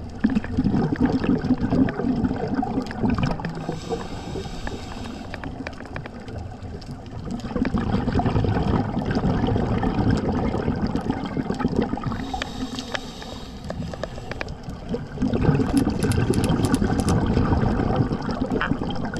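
Scuba diver breathing through a regulator underwater: a hissing draw on each inhale, then a low gurgling rumble of exhaled bubbles. There are about three exhales and two inhales, at a slow, even pace.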